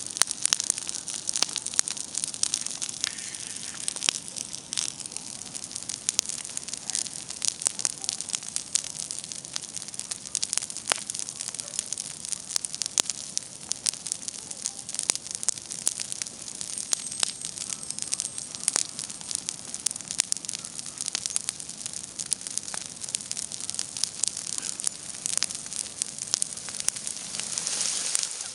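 Wood campfire burning, crackling with frequent sharp irregular pops over a steady hiss.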